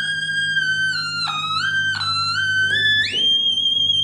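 Original Otamatone played on its high octave setting: one unbroken, very high tone that steps between notes and swoops down and back up twice. About three seconds in it jumps to an even higher note held with a wavering vibrato.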